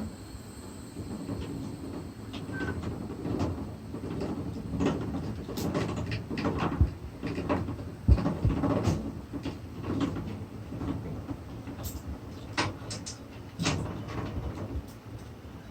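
Scattered metallic knocks and clicks over a low steady rumble as a portable hand crane is worked, thickest in the middle stretch with the loudest knock about halfway through.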